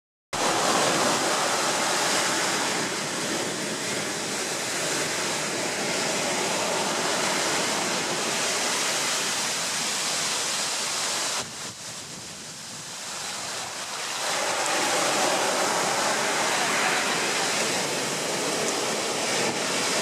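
Ocean surf breaking and washing up over a coarse sand beach, a steady rush of foaming water. It eases off into a quieter lull about halfway through, then builds again as the next wave comes in.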